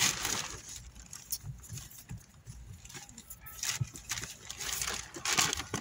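Plastic produce bags and wrappers rustling and crinkling as a gloved hand rummages through them, in uneven bursts with a few soft knocks.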